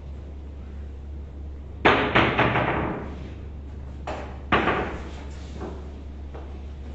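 Boccette billiard balls clacking together on the table: a sharp collision about two seconds in, followed by a quick run of smaller ball-on-ball clicks, then a second sharp clack with a short rattle of clicks about four and a half seconds in.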